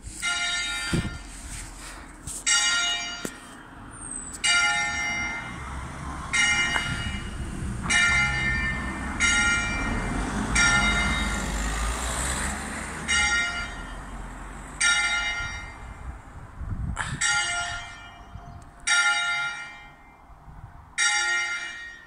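Church bells ringing in the tower, struck one after another about every one and a half to two seconds, each stroke ringing on and fading. A low rumble runs underneath.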